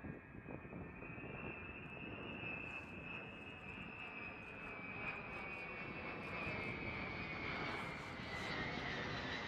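Jet engines of a B-52 bomber flying over: a steady rushing noise with a high whine that slowly drops in pitch over the second half, growing louder toward the end.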